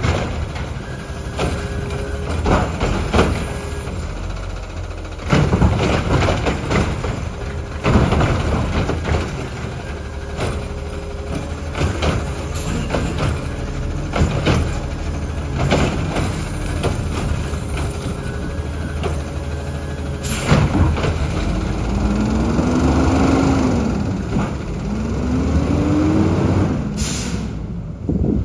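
Automated side-loader garbage truck running, with repeated knocks and clanks from its body and arm. Near the end two rising-then-falling whines as the truck pulls away.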